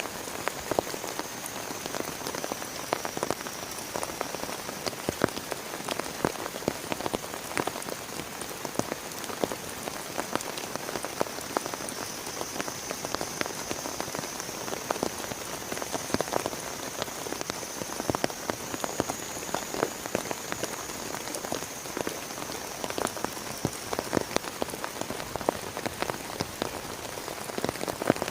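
Heavy rain falling steadily, with dense, irregular drops pattering on a plastic tarp close by.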